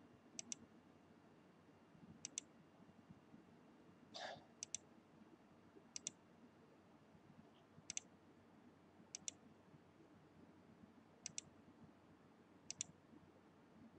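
Faint clicks of a computer mouse button, each a quick press-and-release pair, repeating about every one and a half to two seconds, eight times in all.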